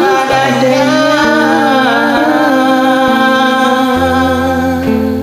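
A voice holds one long, wavering sung note over a karaoke backing track with bass and plucked accompaniment.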